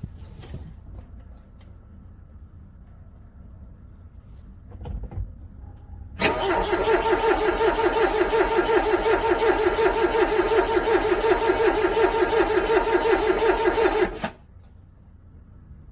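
Car's starter motor cranking a cold engine in a steady, evenly pulsing whirr for about eight seconds, starting about six seconds in and stopping abruptly. The engine fails to catch.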